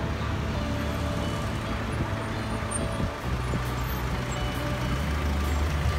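City street traffic: nearby car and van engines running with a steady low hum that shifts in pitch about three seconds in.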